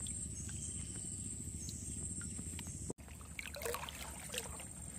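Water sloshing and splashing in irregular bursts as a person wades through river water pushing a metal pot along the surface, starting about three seconds in. Before that, only a steady low outdoor background with a faint high hum.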